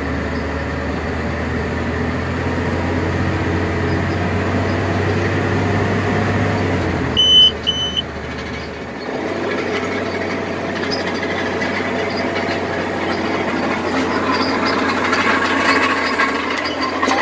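Off-road dump truck's diesel engine running in the cab as the truck drives over a dirt site, with a deep steady hum. Two short high beeps sound about seven seconds in. The deep hum drops away about nine seconds in, and rattling and engine noise slowly build after that.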